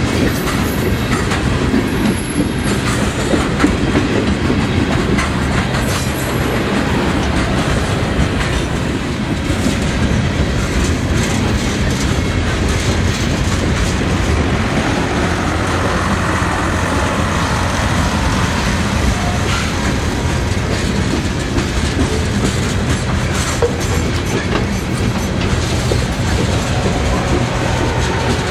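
Freight cars of a CSX freight train rolling past close by: a steady rumble with the wheels clicking over the rail joints.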